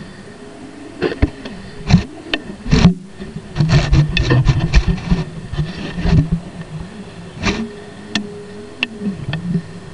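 Muffled underwater knocks and sloshing as water moves against the plastic food container that houses the camera. There is a steady low hum underneath, and a busier rumbling stretch in the middle.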